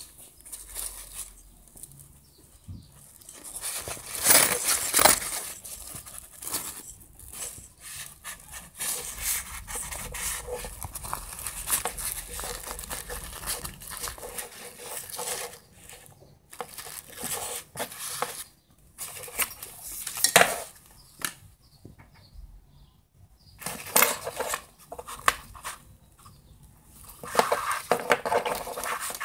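Hands handling a nylon waist bag: irregular rustling and scraping of the fabric and straps, with louder bursts now and then.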